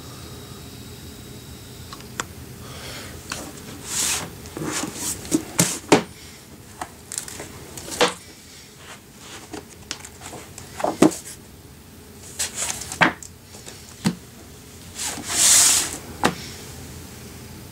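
A hardcover book being handled: the cover and paper pages turning with a few soft swishes, and irregular knocks and taps of hands and book against the wooden tabletop.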